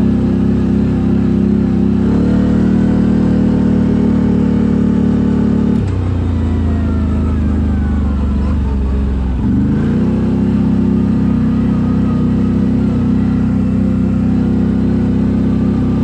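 CFMoto CForce 1000 ATV's V-twin engine running loud through an Akrapovic exhaust, held at steady revs. The revs drop sharply about six seconds in, then climb back about four seconds later and hold steady again.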